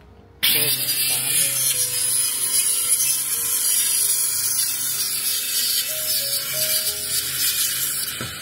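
Handheld electric saw cutting through a wooden formwork board: it starts abruptly about half a second in and runs steadily, a harsh high cutting noise over a low motor hum, easing off slightly near the end.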